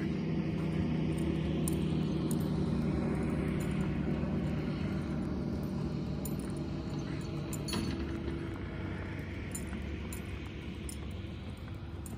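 A steady engine hum that eases off over the last few seconds, with faint scattered hoofbeats on soft arena dirt.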